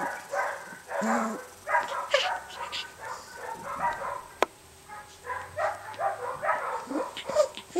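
Rough collie puppy making short, repeated vocal sounds in quick runs while it plays with plush toys. A single sharp click comes about four and a half seconds in.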